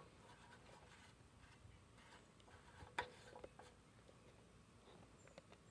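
Near silence: room tone with a few faint clicks, one sharper about three seconds in.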